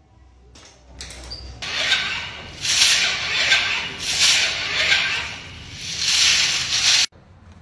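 Electric hand dryer blowing air, a loud hiss that swells and ebbs several times and cuts off suddenly near the end.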